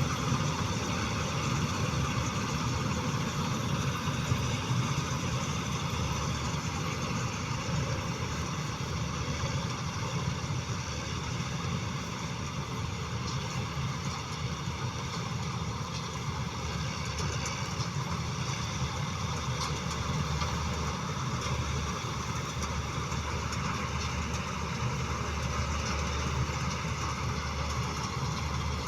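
Vishal 435 combine harvester's diesel engine running steadily: a continuous low drone with an even mechanical hiss over it.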